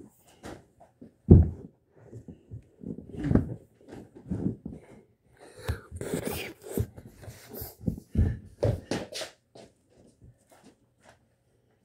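Irregular thumps and rustling close to the microphone, with the loudest thump about a second in, as a child in a long cloth robe moves about right over the phone and brushes against it.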